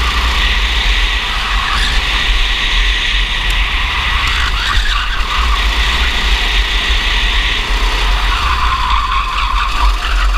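Racing kart engine running hard under the driver's seat, heard from the onboard camera, with a heavy, steady low rumble underneath.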